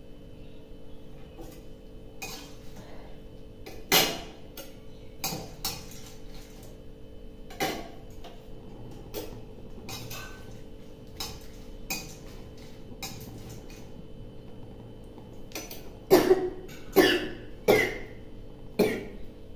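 A woman coughing at intervals from the fumes of chillies frying, mixed with utensils clinking against the pan. Near the end, four louder coughs come in quick succession.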